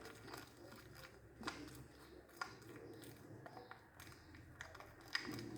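Faint, scattered light clicks and taps, of a spoon working a thick homemade whitening paste in a small dish.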